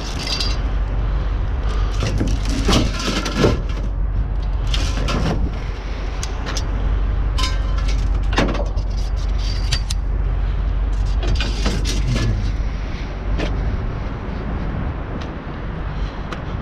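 Irregular clanks and rattles of scrap metal, conduit and wire, being pulled and handled in a dumpster, over a steady low rumble.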